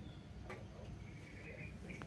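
A kitten gives a faint, high-pitched mew lasting under a second, with a single click just before it.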